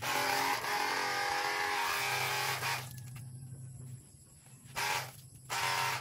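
Handheld pressure washer gun triggered: its pump motor whines over the hiss of the water jet for nearly three seconds, then fires two short bursts near the end.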